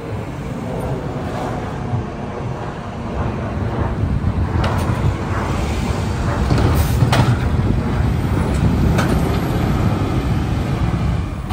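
Mack LR McNeilus garbage truck's diesel engine running and revving up for several seconds, with a handful of sharp metal clanks and bangs from collecting a curbside cart.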